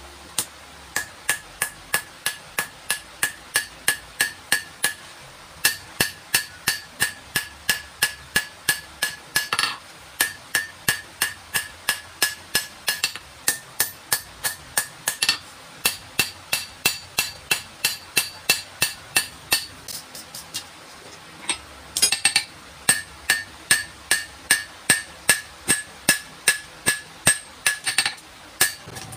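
Hand hammer forging a red-hot high-carbon steel knife blade on an anvil: a steady run of blows about three to four a second, each with a bright metallic ring. The hammering pauses briefly a few times, with the longest break about two-thirds of the way through.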